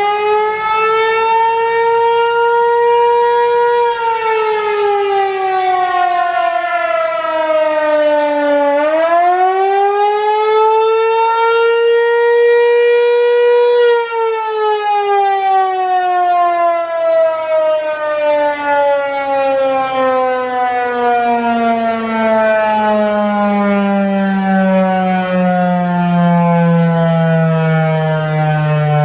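Federal Signal Equinox outdoor warning siren sounding its attack signal: its pitch rises and falls once, rises again, then from about halfway through sinks in one long, slow glide as the siren winds down.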